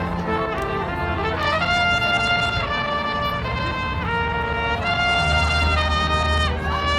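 Music led by brass instruments: trumpets play long held notes that change every second or so, with a few sliding notes, over a steady low bass.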